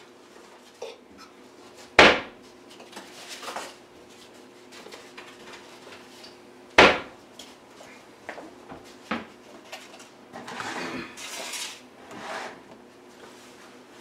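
Kitchen clatter: a utensil clinking and scraping against a stainless steel skillet as meat is tossed in it. Two sharp, loud knocks come about two and seven seconds in, and a longer stretch of scraping and rustling comes near the end.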